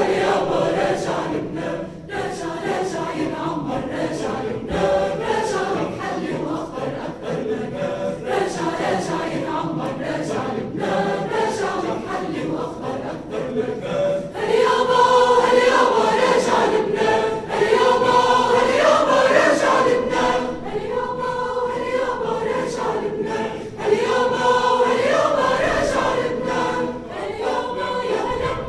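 Choir singing, with many voices in harmony; the singing grows louder about halfway through.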